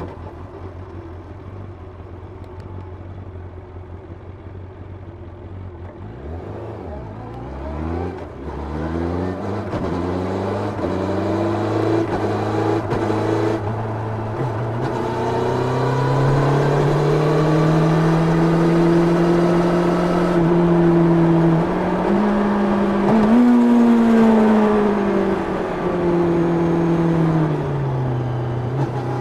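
Onboard sound of a 1990 Yamaha FZR 600's inline-four engine on its stock exhaust. It winds down and runs low and quieter for several seconds. From about seven seconds in it revs up through the gears and runs hard, the pitch rising and dipping with throttle and gear changes, easing off briefly near the end before pulling again.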